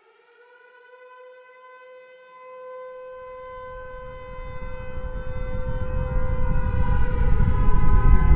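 A siren-like tone that has just swept up and now holds one steady pitch. From about three seconds in, a deep rumble swells beneath it, and both grow steadily louder.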